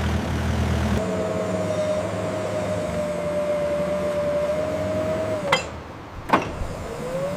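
Forklift running with a steady mid-pitched whine over a low engine rumble that fades after the first second. About five and a half seconds in, the whine dips and stops, two sharp knocks follow, and then the whine rises back up.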